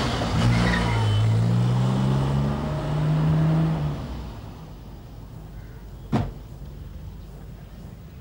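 Maruti Omni van's engine accelerating away, its pitch rising, then fading out after about four seconds. About six seconds in, a car door shuts with a single thump.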